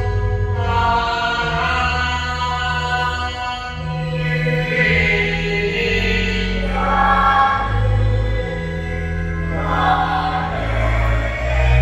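Church choir singing slowly in long held notes, over a sustained low accompaniment that changes chord every couple of seconds.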